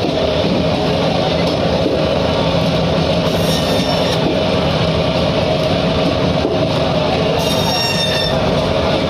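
Electric band saw (fish bone saw) running steadily as its blade cuts crosswise through a whole tuna. Twice, about four and eight seconds in, a brief shrill metallic squeal rises as the blade passes through the fish's backbone.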